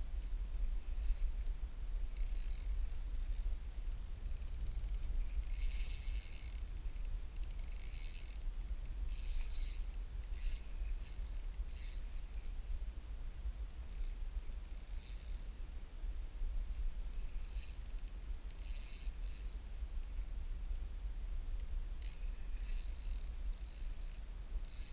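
Spinning reel being cranked in short spells, a fast ticking whir, while a hooked bass is played in on light line. Heard over a steady low rumble.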